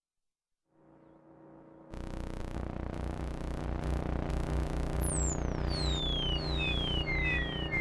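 Buchla and Eurorack modular synthesizer soundscape fading in: from about two seconds a low pulse at about four a second sits under steady drone tones and a very high whistling tone. From about five seconds the high tone turns into a string of repeated falling glides.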